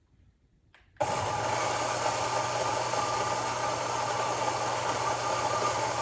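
Fellow Ode electric flat-burr coffee grinder switching on about a second in and grinding coffee beans steadily: a constant low motor hum under a dense whirring grind. It peaks at about 79 decibels on a meter.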